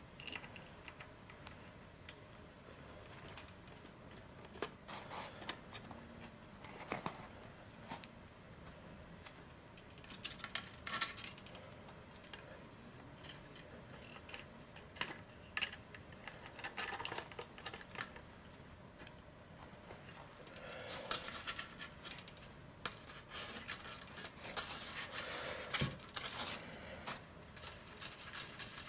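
Handling noises of hands working a thin pull-string line at a carbon V-tail's control horn: scattered small clicks, scratches and rustles, busier in the last third.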